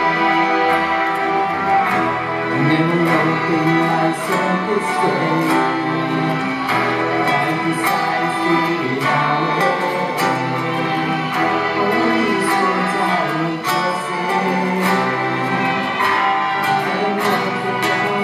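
Live ensemble music: acoustic guitars strumming and plucking under a violin line, with light hand-drum hits keeping a steady beat, echoing in a hall.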